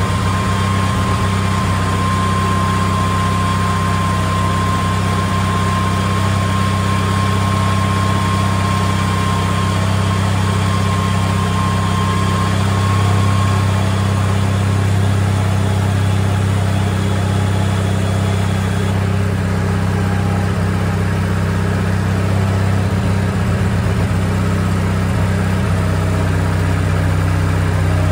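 Zero-turn mower's small engine idling steadily, running on old gasoline that had water in it. A faint high whine fades out about halfway through.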